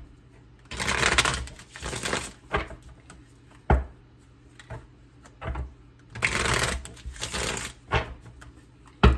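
Tarot cards being shuffled by hand: two longer runs of rustling, slapping cards, about a second in and again around six seconds, with separate sharp taps in between.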